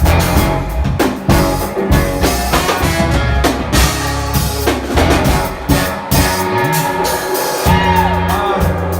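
Live band playing, a drum kit keeping a beat under a guitar solo, with bent, gliding notes near the end.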